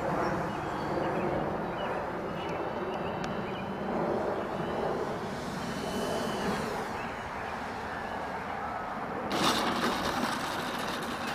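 Electric motor and propeller of an E-flite Beast 60E RC biplane as it flies low and lands: a faint high whine over a steady rushing noise. There is a brief louder rush of noise about nine seconds in.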